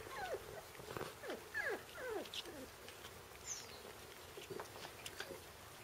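Four-week-old Shiba Inu puppies whining and squeaking: a quick run of short high cries, each sliding down in pitch, that thins out after about two and a half seconds.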